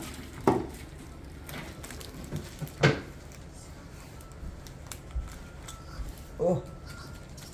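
Boiled snow crab being broken apart by hand: shell and leg joints cracking in a few sharp snaps, the loudest about three seconds in.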